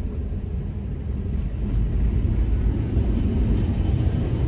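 Low, steady rumble of a tank column passing close by, heard from inside a car; it grows louder about two seconds in.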